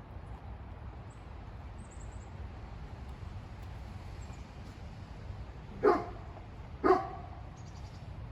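A dog barking twice, about a second apart, over a steady low background rumble.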